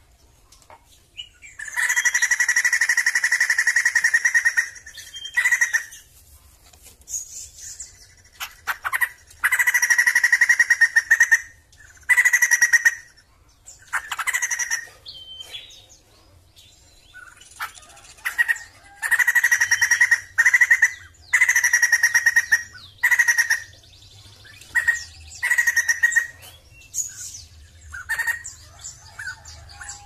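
Sumatran laughingthrush (poksay jambul Sumatera) calling: a series of loud drawn-out calls, some lasting two seconds or more, broken by short gaps and briefer notes.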